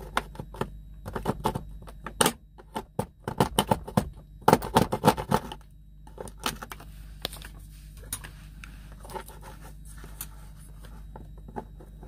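Serrated knife scraping and cutting at a small plastic tab on the edge of a dashboard socket hole: a quick run of sharp scrapes and clicks through the first half, then fainter scattered clicks of plastic being handled.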